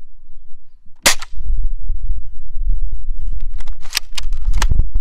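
A single sharp shot from a bolt-action rifle about a second in, followed by a quick run of sharp clicks and knocks near the end, over a low rumble.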